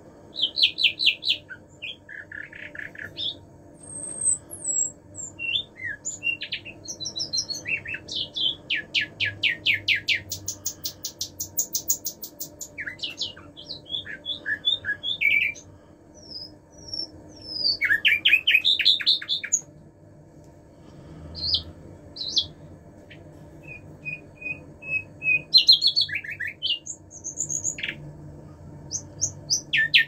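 Caged common nightingale singing: varied phrases of fast repeated notes and rattling trills, whistled slurs, and a run of evenly repeated clear notes, separated by short pauses.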